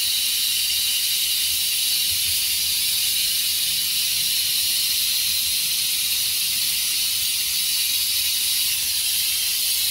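Steady, even high hiss with no other clear sound.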